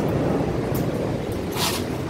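Heavy thunderstorm rain and wind, a steady low rumbling noise, with a brief sharp hiss or splash near the end.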